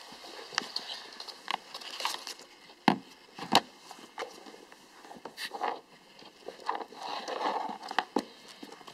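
A corgi scrabbling after an ice cube lost under a couch: scattered clicks and scrapes on a hardwood floor, with two sharp knocks about three seconds in.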